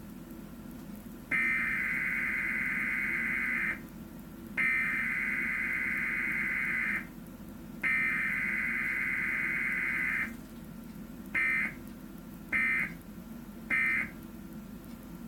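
Emergency Alert System data tones from a cable TV broadcast: three long warbling bursts of SAME header code, each about two and a half seconds with a second's pause between, then three short bursts of the end-of-message code. The uploader takes this alert for the work of a hacker.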